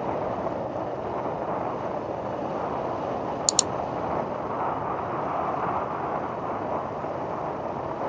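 Motorbike riding along a dirt road: steady engine and wind rush. About three and a half seconds in, two quick mouse-click sounds from an on-screen subscribe-button animation.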